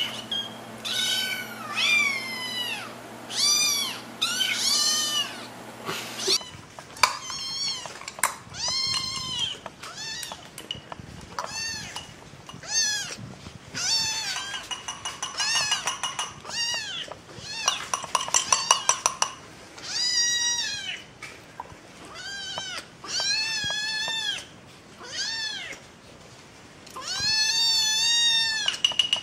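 Kittens meowing over and over in short, high, thin cries, one after another. Stretches of rapid clicking run under some of the meows.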